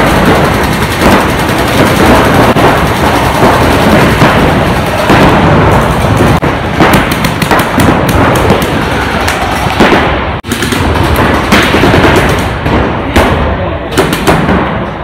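Paintball markers firing rapid strings of shots, the shots following one another almost without a break.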